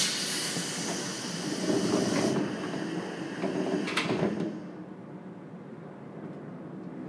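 Doors of a JR Kyushu 415 series 1500 electric train closing: a sudden hiss of compressed air from the pneumatic door engines that cuts off after about two seconds, the doors sliding, and a sharp knock as they shut about four seconds in.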